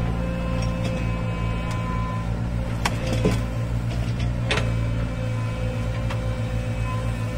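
Excavator's diesel engine running steadily, with a few sharp knocks about three and four and a half seconds in.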